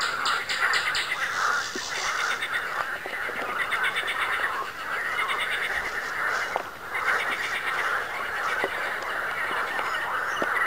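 Spring wetland frog chorus: many frogs calling over one another in a continuous din, with fast pulsed trills above it.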